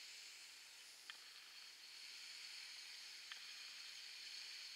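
Faint, steady hiss of light rain, with a couple of soft drip ticks. No tractor engine is heard.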